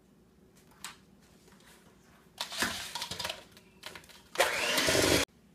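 Electric hand mixer beating egg and vanilla into creamed butter and sugar in a stainless steel bowl. It runs in short spurts, the last and loudest for about a second before cutting off suddenly.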